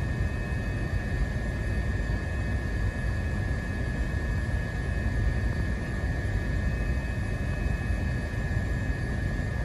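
Steady low outdoor rumble with a thin, steady high-pitched whine over it.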